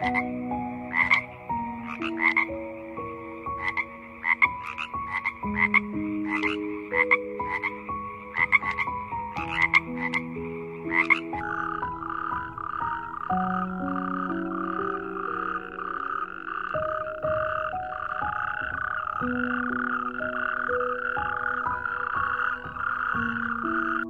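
Frogs calling in short repeated croaks, about one and a half a second. About halfway through this gives way to a continuous, finely pulsing toad trill. Soft background music with slow held notes plays underneath.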